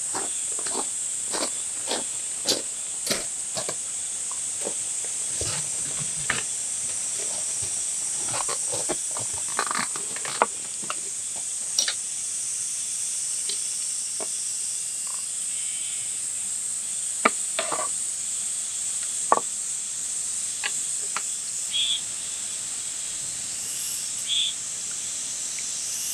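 A steady, high-pitched insect chorus of crickets or cicadas runs throughout. Over it come sharp knocks and taps, about two a second for the first few seconds, then scattered, with a few short high chirps near the end.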